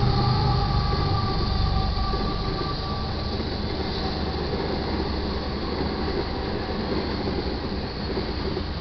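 Canadian Pacific freight train passing: the GE ES44AC diesel locomotives go by, then the freight cars roll past with a steady rumble of wheels on rail. A faint high tone fades out in the first few seconds, and the sound eases slowly as the locomotives move away.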